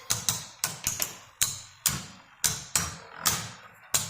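Plastic Beyblade Burst spinning tops battling in a stadium: sharp, irregular clacks about two to three times a second as the tops knock into each other, over a faint steady spinning hum.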